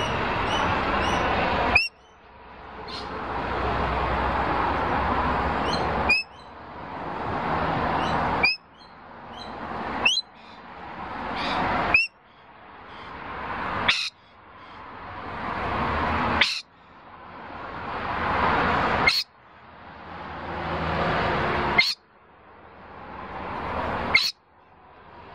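A flock of parrots chattering and screeching, in swells that build over two or three seconds and cut off sharply, about ten times, each cut marked by a short high chirp.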